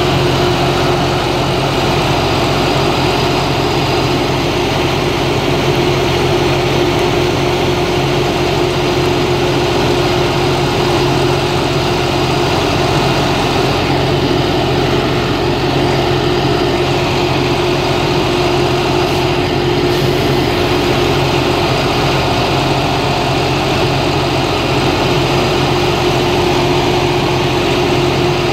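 Rail grinder's diesel engines idling steadily while the machine stands still: a loud, constant engine drone with a steady hum over it.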